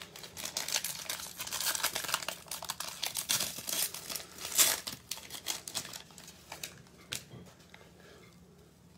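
Wrapper of a 2021 Prizm baseball card cello pack crinkling and tearing as it is pulled open by hand. It is loudest about four and a half seconds in, then dies down to a few faint rustles.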